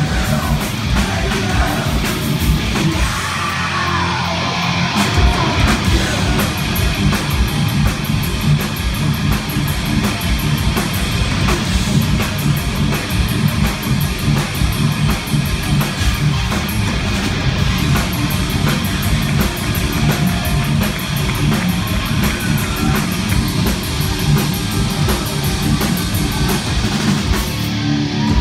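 Thrash metal band playing live: distorted electric guitars, bass and fast drumming in an instrumental passage. The low end drops out for a couple of seconds about three seconds in.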